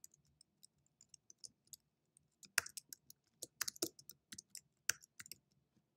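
Faint typing on a computer keyboard: irregular keystrokes entering a line of text.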